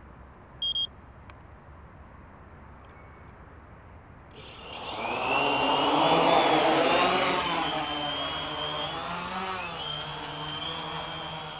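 A short electronic beep a little under a second in. About four seconds in, the quadcopter's four electric motors and propellers spin up into a loud rising whine for takeoff, then keep whining with a wavering pitch as it hovers and flies off, fading a little as it moves away.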